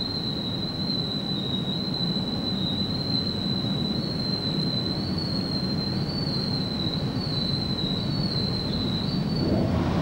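Automatic rollover car wash machine heard from inside the car: a steady high whine that wavers slightly in pitch, over a low rumble of water and machinery. The whine stops near the end as a louder rushing sound begins.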